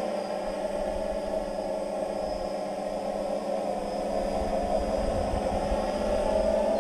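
X8-configured octocopter's electric motors and propellers running with a steady multi-tone hum, with uneven low wind rumble on the microphone that grows in the second half.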